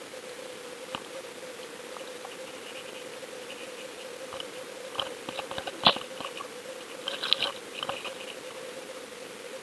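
Audio from an underwater camera: a steady hum and hiss, with scattered sharp clicks and crackles that come in small flurries a little past halfway, the loudest about six seconds in.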